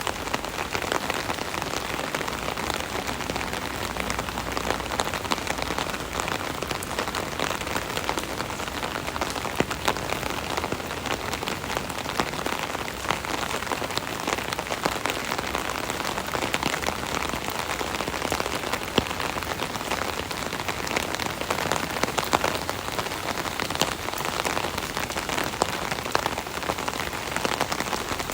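Steady rain pattering on an umbrella canopy, a dense even hiss of drops with many separate taps standing out.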